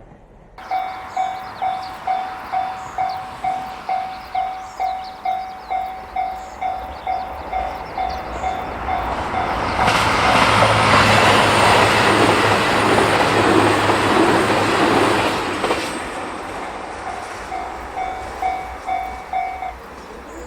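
Japanese level-crossing warning bell ringing about twice a second, then a diesel train running over the crossing for about six seconds and drowning the bell out. The bell is heard again after the train has passed and stops near the end.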